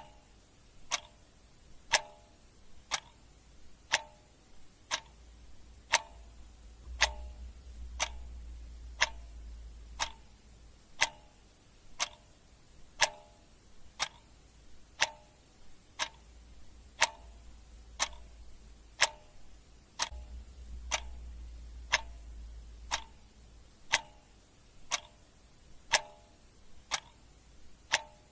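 Clock ticking once a second, the ticks alternating louder and softer in a steady tick-tock.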